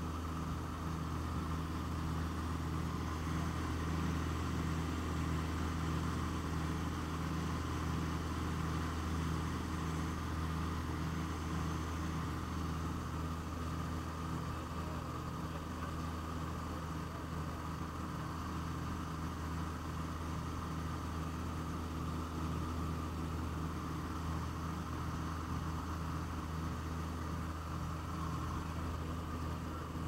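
Cabin drone of the Aero Commander L-26B's twin piston engines and propellers in cruise flight, heard inside the cockpit: a steady, even drone with a low hum and a slow, regular pulsing in it.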